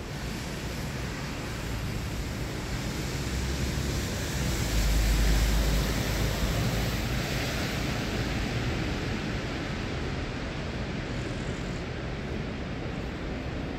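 Street traffic noise: a steady hiss of vehicles on a wet road, with a low rumble that swells about five seconds in, and wind on the microphone.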